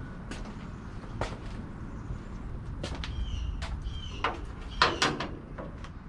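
Hand tools clicking and knocking on the truck's engine during a spark plug change: scattered sharp knocks over a low steady rumble, the loudest about five seconds in.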